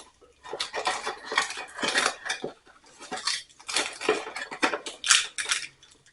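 Metal hand tools and outlet hardware clinking and rattling as they are handled, in irregular clusters of short clicks and scrapes.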